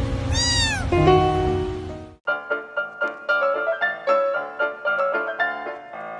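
A cat meows once, a single call that rises and falls in pitch, over background music. About two seconds in the sound cuts suddenly to a light tune of separate struck notes.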